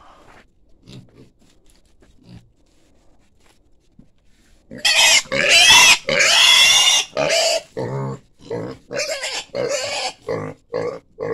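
Piglet grunting quietly, then about five seconds in squealing loudly and shrilly as it is grabbed and held by hand. The squealing goes on as short repeated squeals, about two a second.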